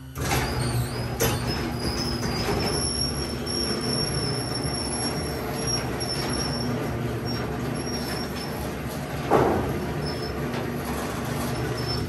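Electric garage door opener raising a sectional garage door, with the rollers rumbling in the tracks. It starts abruptly and carries a thin, high steady whine over the rumble. There is a louder clunk about nine seconds in, and the noise drops off as the door reaches the top.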